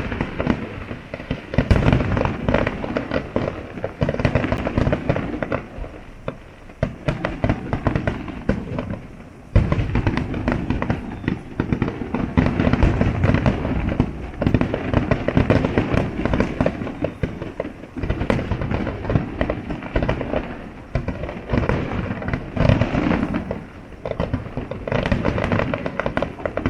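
Fireworks display in full barrage: a dense, unbroken stream of bangs and crackling shells. It eases off briefly after about six seconds, then comes back with a sharp loud burst about nine and a half seconds in and keeps going.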